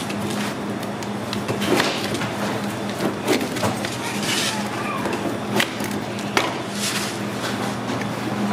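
Rolling pizza cutter slicing a large pizza on a metal pan, its wheel scraping and clicking against the metal several times, over a steady low hum.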